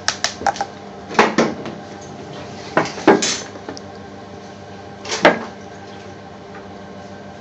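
A metal spoon clattering and knocking against a bowl and spice containers as spices are spooned in: four short clatters over a steady background hum.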